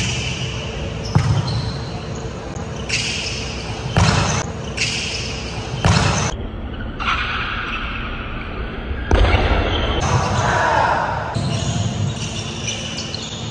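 A volleyball being struck by hands and arms in rally play: a handful of sharp slaps, echoing in a large gym hall, with players calling out between hits.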